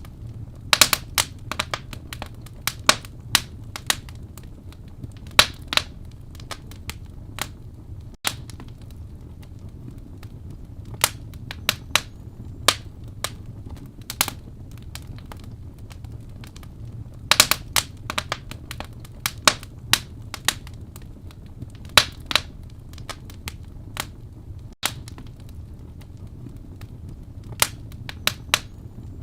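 Wood fire burning in a fireplace, crackling with irregular sharp pops and snaps, some in quick clusters, over a steady low rumble of the flames.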